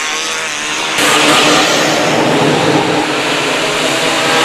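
Engines of several banger racing cars running and revving as they race past, a mix of engine tones over a noisy haze. The sound jumps louder and fuller about a second in.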